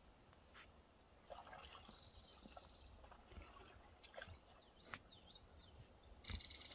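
Quiet pond sounds: a few faint splashes and drips of water from a moose feeding with its head in the water, and a faint high steady trill from about two seconds in.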